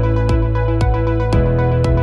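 Background electronic music with a steady beat, about two strikes a second over held synth tones.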